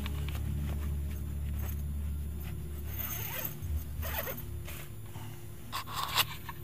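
Zipper on a tent trailer's canvas wall being pulled open in several scratchy strokes, with fabric rustling. The strongest pulls come near the end.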